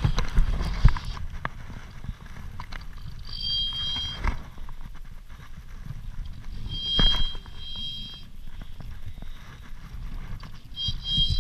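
Fly reel's click-and-pawl ratchet while a salmon is being played: clicking as line is wound in, with three short buzzing runs of about a second each as the hooked fish pulls line off the reel.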